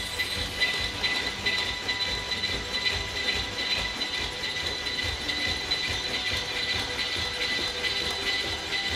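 Honda ASIMO humanoid robot's joint motors whining steadily and high-pitched as it hops and turns, over a fast irregular clicking and soft thumps of its feet.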